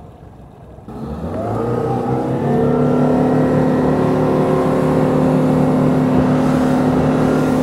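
Boat motor throttling up about a second in, its pitch rising briefly, then running steadily at speed.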